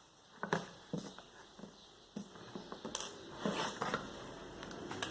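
Irregular clicks and short rustles of hands working on a fan's motor wiring while the burnt-out motor is taken off.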